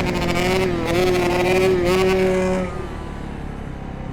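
Two-stroke dirt bike engine held at high revs, its pitch nudging up about a second in, then the throttle chopped and the engine backing off near the end.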